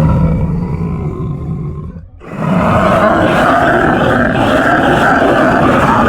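Halloween monster growl sound effect: a deep, rough growl fades out about two seconds in, and a second growl starts right after and carries on.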